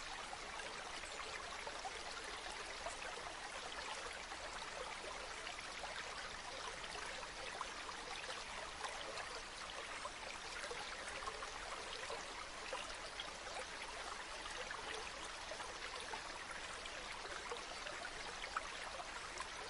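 Steady rushing and splashing of falling water from a small mountain waterfall or stream, an even hiss with fine droplet splashes, strongest in the upper middle range and with little low rumble.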